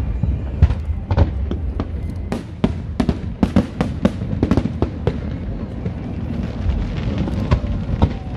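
Aerial fireworks bursting in a rapid string of sharp bangs, thickest in the middle, then thinning out toward the end, over a continuous low rumble.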